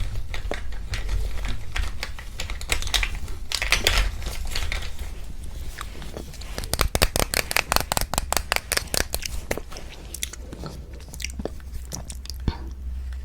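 Close-miked chewing of wagashi, Japanese confectionery: a run of quick clicking mouth sounds, densest about halfway through, then thinning out.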